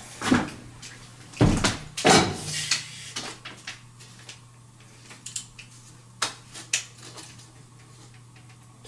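Several loud knocks and thumps in the first couple of seconds, then scattered light clicks and rattles of a tape measure being handled against a window casing, over a steady low hum.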